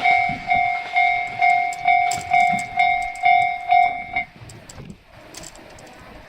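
Japanese railroad crossing warning bell ringing in even strikes, about two a second, then stopping about four seconds in.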